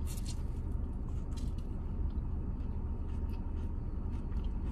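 Steady low hum of a car at idle, heard inside the cabin, with light clicks and rustles of food being handled and chewed.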